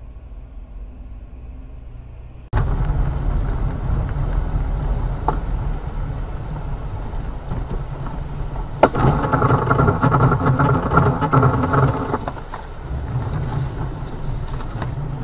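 Car engine and road noise as heard from inside a car, starting abruptly and loudly about two and a half seconds in. Near the middle comes a single sharp knock, followed by about three seconds of a steady pitched sound over the engine noise.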